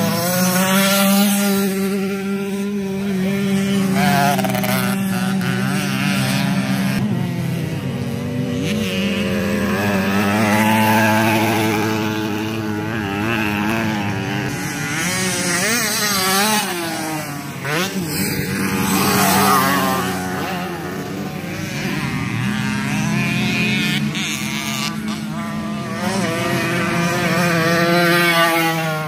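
Several 50cc racing motorcycles running on a circuit, their engines overlapping and rising and falling in pitch as they pass and change revs, over a steady engine drone.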